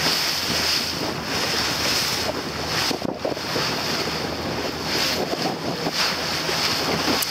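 Wind buffeting the microphone and water rushing and splashing past a moving boat, with a faint steady low hum underneath.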